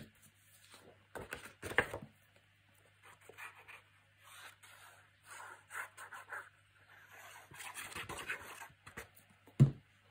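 Sheets of paper and card being handled and slid on a tabletop: scattered rustling and scraping, with a knock about two seconds in and a sharper thump near the end, the loudest sound.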